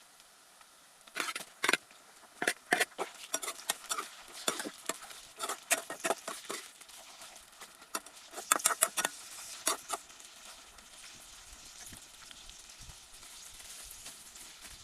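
Outdoor cooking noises: irregular sharp clicks and knocks for about nine seconds, then a steady soft hiss.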